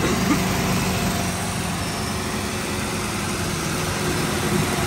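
Original V8 of a Pontiac Trans Am idling steadily with the hood up, a low even running hum; the owner calls the old engine tired.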